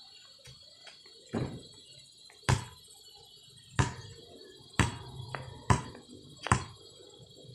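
A basketball striking a wooden backboard and bouncing on an asphalt road: six sharp thuds about a second apart. Crickets trill steadily underneath.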